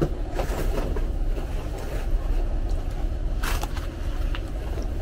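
Eating at a table: a few short clicks of utensils and mouth sounds, about half a second in and again about three and a half seconds in, over a steady low hum.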